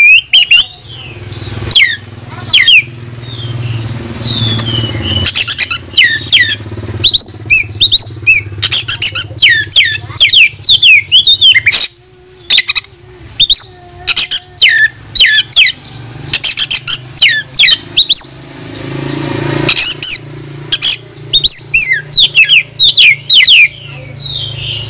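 Male oriental magpie-robin singing a loud, fast run of varied whistles and sharp chattering notes, broken by two short pauses. It is the aggressive in-form song of a bird calling out a rival to fight.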